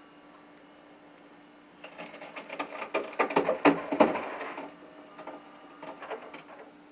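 Glass beer bottles and cans clinking and clattering as they are shifted about on a refrigerator shelf. A burst of rapid knocks lasts about three seconds, then a few lighter knocks follow near the end.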